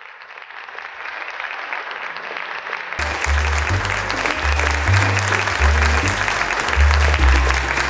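Applause swells up steadily. About three seconds in, closing music with a bass line comes in over it, and the applause carries on underneath.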